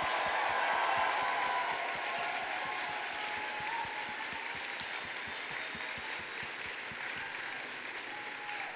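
Audience applauding, with some cheering at first. The applause swells to its loudest about a second in, then eases a little and carries on steadily.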